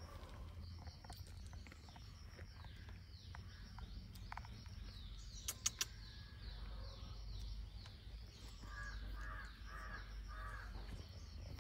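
A crow cawing four times in quick succession about three-quarters of the way through, over steady high chirping of small birds. Two sharp clicks come about halfway.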